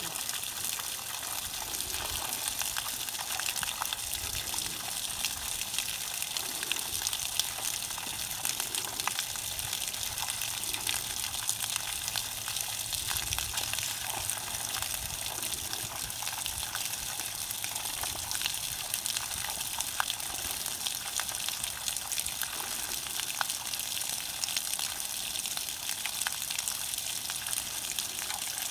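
Mineral-spring water gushing steadily from an open pipe outlet and splashing onto the ground below, a constant rushing noise with faint scattered ticks.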